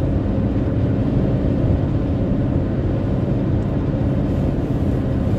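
Steady road and engine noise inside a moving car's cabin, a dense low rumble without breaks.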